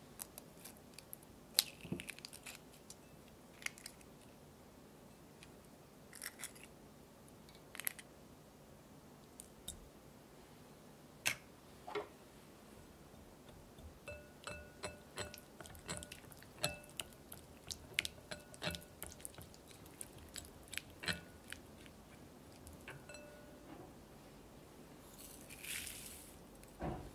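Eggs being handled and cracked, with scattered sharp taps and cracks, then a wire whisk beating egg yolks in a glass bowl, its wires ticking against the glass with a faint ring about two or three times a second. Near the end, cane sugar is poured in with a brief hiss.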